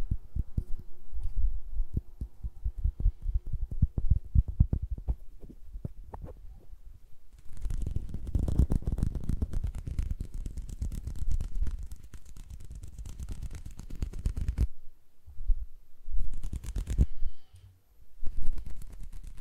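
Hand sounds held right up against a microphone. First come quick, irregular finger taps and flutters with low thumps. Then, from about seven seconds in, palms and fingers rub together in a dense, steady rustle for about seven seconds, followed by a few short rubs and taps.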